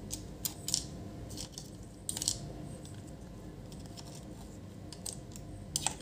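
Small clicks and scrapes of a multimeter probe tip tapping against solder joints and components on a Samsung TV power supply circuit board: a handful of separate light ticks, the loudest a little over two seconds in.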